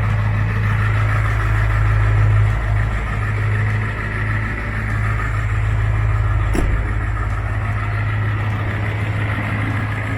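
Ford 7.3 Powerstroke V8 turbo-diesel in a 2001 F350 idling steadily, with one sharp click about six and a half seconds in.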